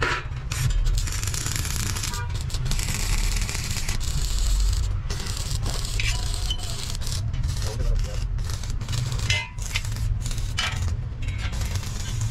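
Small steel brackets and wheelbarrow frame tubes clinking and scraping as they are handled and positioned, over a steady low hum and hiss of workshop noise.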